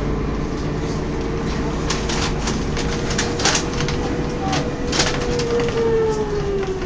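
Volvo B10M bus's ZF automatic gearbox whining, a steady single tone that falls in pitch about five and a half seconds in. Under it is the low drone of the running bus, with a few sharp clicks and rattles.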